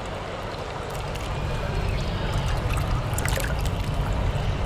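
Running water with a low rumble underneath, growing louder about a second and a half in.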